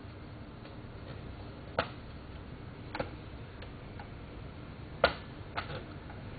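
Sharp clicks from an F1-racing novelty alarm clock, coming at uneven intervals with the loudest about five seconds in, over a faint steady hiss.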